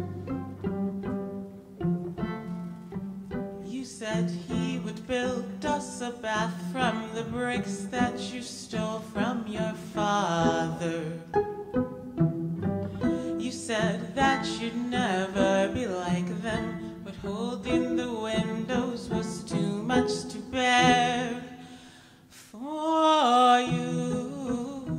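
Live violin music: a violin plucked in a repeating pattern over layered, sustained low string tones, with a high line sung with vibrato entering about four seconds in. The music drops briefly near the end, then a rising glide brings it back.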